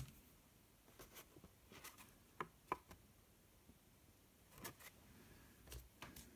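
Near silence, with a few faint rustles and light taps of cardstock sheets being handled and shifted on a craft mat.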